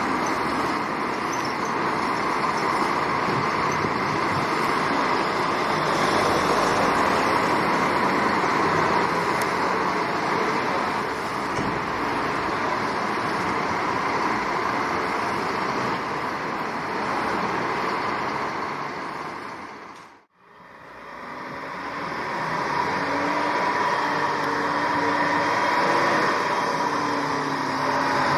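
Fire engines moving off on an emergency run along a city street: engine and traffic noise throughout. The sound fades out and back in about twenty seconds in, and short held tones follow.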